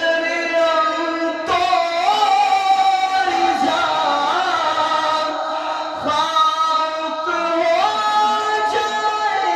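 A man singing a naat, an Urdu devotional poem in praise of the Prophet, solo into a microphone, holding long notes with sliding ornaments between them.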